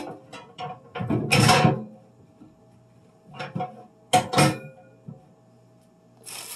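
Kitchen handling noises: scattered knocks and clicks, a longer noisy scrape about a second in, and a few sharp knocks around four seconds in, with a faint steady hum underneath.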